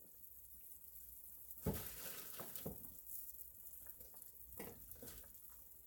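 Sauce boiling in a stainless steel skillet: a faint, steady bubbling hiss with a few soft pops.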